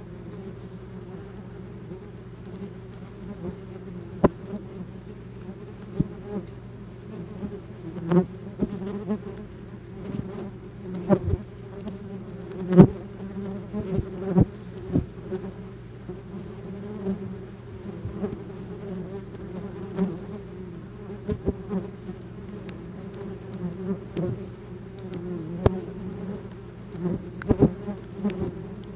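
Many wasps buzzing close around a GoPro, a continuous low hum, with sharp taps scattered throughout as wasps strike the camera housing; the loudest tap comes about halfway through.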